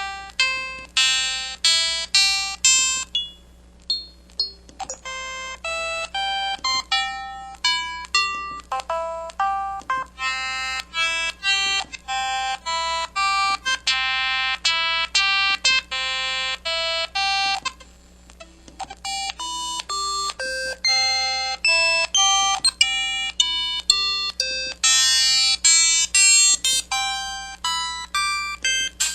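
KTF-X5200 mobile phone playing polyphonic ringtone melodies through its built-in speaker: quick runs of bright synthesized notes, each fading fast, with a short pause about 18 seconds in before the next tune starts.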